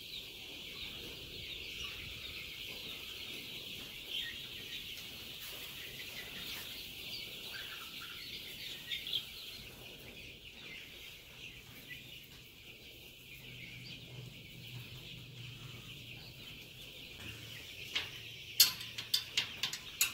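A large flock of four-week-old Australorp and Rhode Island Red chicks peeping and chirping continuously, many small high calls overlapping. A few sharp clicks come near the end.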